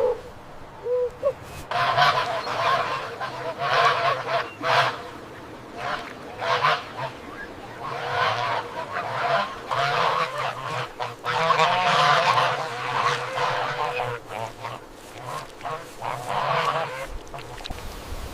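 Waterfowl calling: a long series of harsh, honking calls, some in quick runs, with a few short chirps just at the start.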